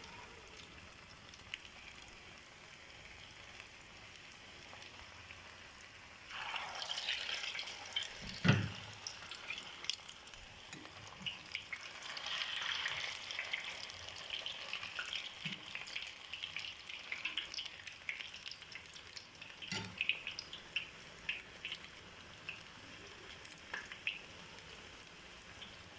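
Spoonfuls of grated potato frying in hot oil in a pan: a soft sizzle that swells into crackling about six seconds in, as more of the mixture goes in. Two dull knocks sound along the way.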